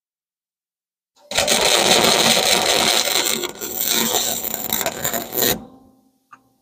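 Wire-feed welder arc crackling steadily as a pipe is welded onto a steel jig, starting about a second in and cutting off after about four seconds. A small click follows near the end.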